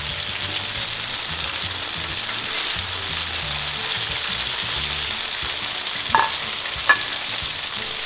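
Marinated pork skewers sizzling steadily on a hot stovetop grill pan, a constant frying hiss. About six and seven seconds in come two short ringing metallic clinks from the steel tongs against the pan.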